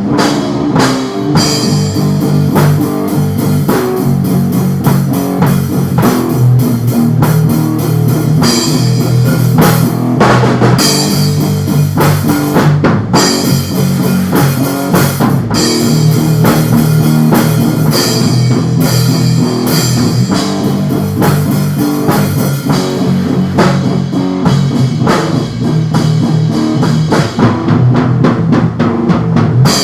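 Instrumental lo-fi rock music: electric guitar over a steady drum-kit beat.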